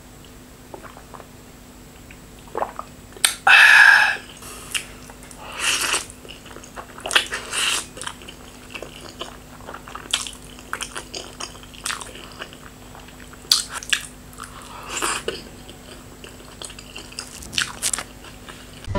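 Close-miked eating sounds: sips from a bowl of millet beer (kodo jaand), noodle slurping and chewing, in scattered short bursts. The loudest, about a second long, comes a little after three seconds in.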